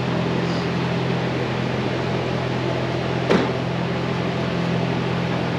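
Steady motor hum with a constant low drone, and one sharp click a little over three seconds in.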